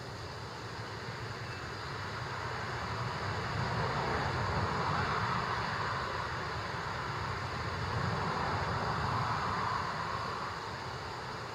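Highway traffic going past: tyre and engine noise swelling twice as vehicles pass, then easing off near the end.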